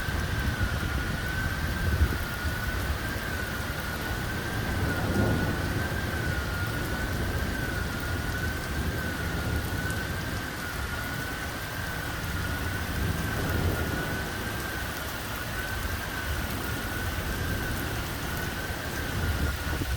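Heavy rain of a thunderstorm with low rumbles of thunder, and a single high siren-like alarm tone wavering slowly up and down about once a second.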